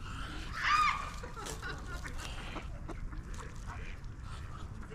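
Ducks calling: one loud, arching call about a second in, then fainter scattered calls over a steady low rumble.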